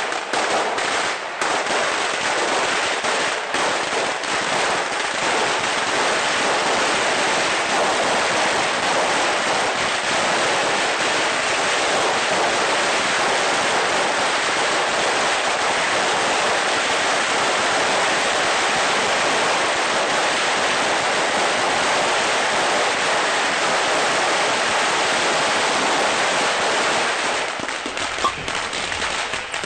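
Chinese firecrackers (Chinaböller) going off together in a dense, continuous crackle of rapid bangs and pops, sharpest in the first few seconds and dropping off near the end.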